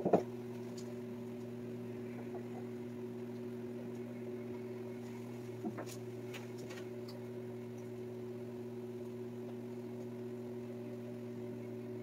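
Steady low electrical hum of a kitchen appliance motor, with a short knock right at the start and a few faint light clicks about halfway through.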